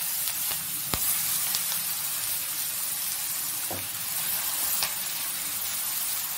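Freshly washed moringa (drumstick) leaves sizzling in hot oil in a kadai, the water on them hissing off as steam. A steady hiss with a few sharp pops in the first second.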